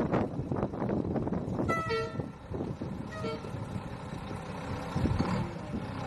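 Two short vehicle horn toots, about two and three seconds in, each sounding several pitches at once. About five seconds in, a diesel truck engine comes up and runs steadily.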